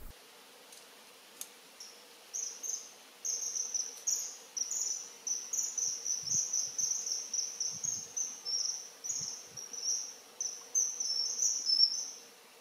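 Common kingfishers calling: a rapid run of high, shrill peeps in irregular bursts, starting about two seconds in and stopping shortly before the end.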